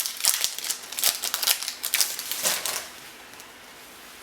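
An AFL Teamcoach trading card pack being handled and opened: rapid papery crinkling and clicking that stops about two thirds of the way through.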